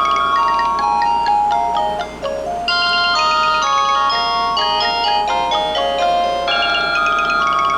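Uniden D3280-2 DECT 6.0 cordless phone playing one of its melodic ringtones: a tune of high notes, several sounding at once, with a short break about two seconds in before the tune carries on.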